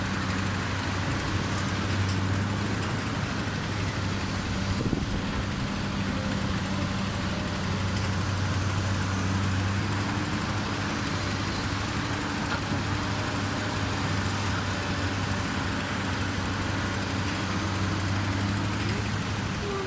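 Komatsu excavator's diesel engine running steadily, a constant low engine note with no clear revving.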